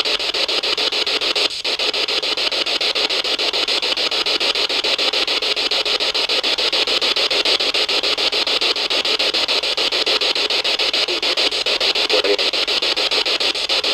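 A loud, steady hiss with a fast, choppy flutter, most of it in the middle and upper range; it dips briefly about a second and a half in.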